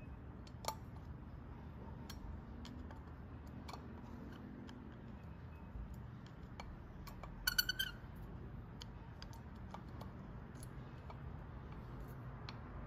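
Faint, scattered small metal clicks and taps as a pick works a little spring-loaded valve in a carburetor body. A brief high-pitched chirp sounds about seven and a half seconds in.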